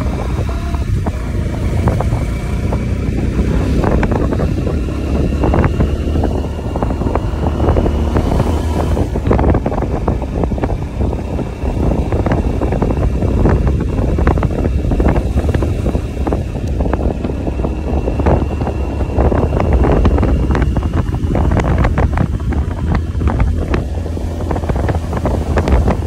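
Wind buffeting the microphone of a moving motorcycle, a steady low rumble broken by irregular knocks, with the bike's engine and tyres running underneath.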